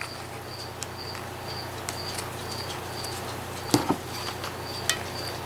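Faint rustling and tapping of hands pressing a hot-glued paper ruffle onto a paper medallion, loudest about four seconds in. Under it runs a faint high chirp that repeats about twice a second.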